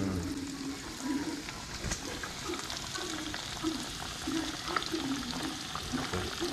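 Breaded sheepshead frying in a pot of hot grease: a steady sizzle with fine crackling and popping.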